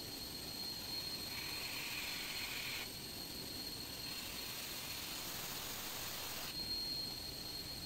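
Steady drone and hiss of running machinery with a thin, high, steady whine. A higher hiss comes in about a second in and lasts a second and a half.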